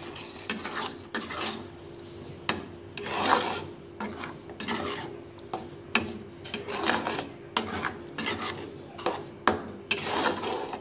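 Metal spatula scraping and stirring thick chicken-and-onion masala in a pan, in irregular strokes about once or twice a second.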